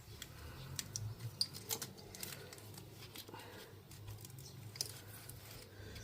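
Scattered faint clicks and light taps of hands handling small parts and tools, with a faint low hum underneath.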